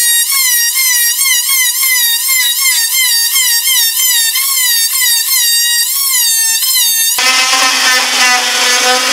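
Porter-Cable oscillating multi-tool cutting a groove into a wooden boat plank. Its high whine wavers up and down about twice a second as the blade is worked into the wood. About seven seconds in it drops to a lower, buzzier pitch.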